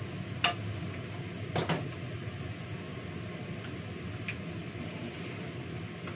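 Metal cookware clanking: a sharp knock about half a second in, then two or three more a second later, as a wok and spatula are handled and set down. Under it, the steady low hum of a kitchen extractor fan.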